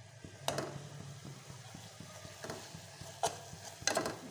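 A metal spoon stirring in an aluminium pot of simmering liquid, clinking against the pot's side about five times.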